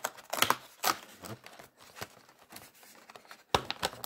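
Cardboard advent calendar door being pried and torn open with a tool: irregular crackling and tearing of cardboard and paper. A quieter stretch falls in the middle, and a fresh burst of crackling comes about three and a half seconds in.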